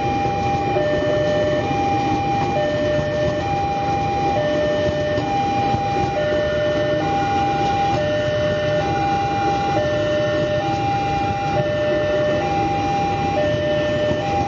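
Railway level-crossing warning alarm repeating a two-tone chime that alternates high and low, each tone about a second long. Under it is the steady rumble of a KRL Commuterline electric train running past on the tracks.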